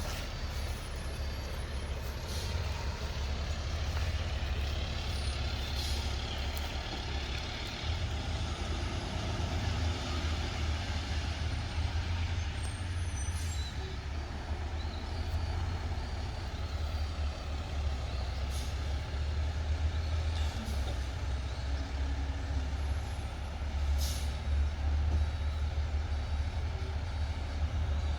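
Heavy diesel dump truck engine running steadily, with a few short air-brake hisses and faint reversing beeps.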